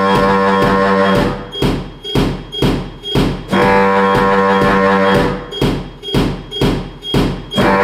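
A large, low-pitched saxophone sounding long held notes, three of them, each about a second and a half, over a pulsing electronic beat of about two pulses a second.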